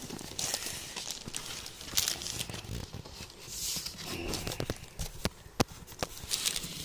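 Cardboard boxes and styrofoam packing scraping and rustling against each other as a boxed water pump is slid out of its outer carton, with plastic wrapping crinkling and a few sharp knocks of cardboard being handled.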